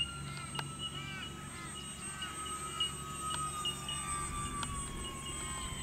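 Electric motors of a twin-engine RC floatplane whining, their pitch sliding slowly down as it throttles back and settles onto the water. Birds call with short repeated chirps and tinks in the background.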